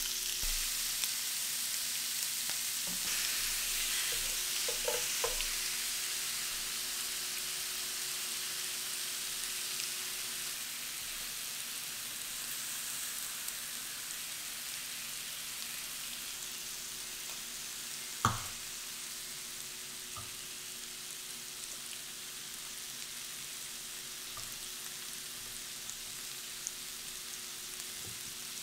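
Slices of meat sizzling on a tabletop grill pan, a steady hiss that slowly eases. A few light clicks come about four to five seconds in, and a single sharp clack about two-thirds of the way through is the loudest sound.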